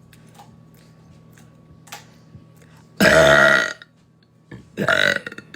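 A woman lets out one loud, deep, bassy burp about three seconds in, lasting under a second. A shorter, quieter vocal sound follows about a second later.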